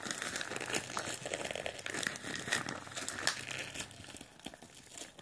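Plastic courier mailer bag crinkling with dense crackles as it is handled and worked open.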